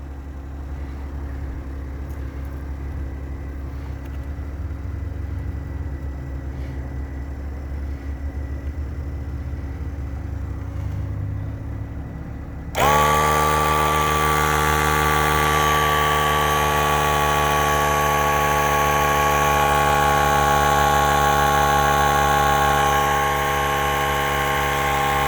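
Smart ForTwo's three-cylinder engine idling as a low hum; about 13 seconds in, the 12-volt air compressor from the car's tire repair kit switches on abruptly and runs with a loud steady whine, its pitch sagging slightly as it pumps up a tyre.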